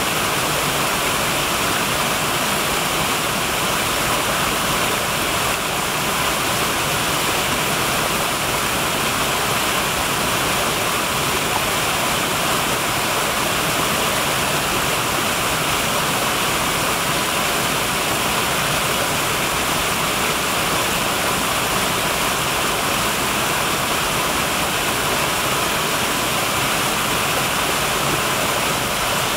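Small woodland waterfall: several thin cascades of a brook spilling over mossy rocks and splashing into a shallow pool, a steady rushing hiss.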